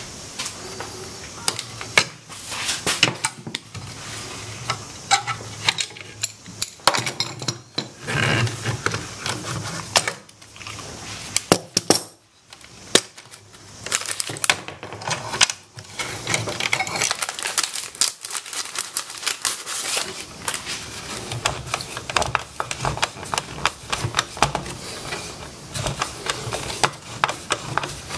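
Metal clamps and wooden folding-table legs being handled: irregular clicks, clinks and knocks, with stretches of rubbing or scraping.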